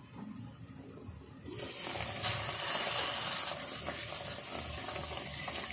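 Sinigang broth boiling hard in a stainless steel pot: a steady bubbling hiss comes in suddenly about a second and a half in, as the glass lid comes off.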